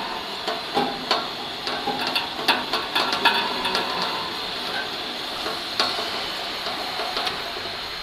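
Irregular metal clanks and knocks over a steady machine hiss, as the stainless-steel conveyor belt frame of a bubble washing machine is lowered back into its tank by the automatic lifting system. The knocks cluster in the first six seconds and then thin out.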